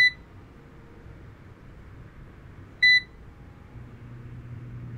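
Cosori air fryer's touch panel gives two short, high electronic beeps about three seconds apart as its buttons are pressed, the second for start. Near the end the fryer's fan starts with a low, steady hum that grows louder.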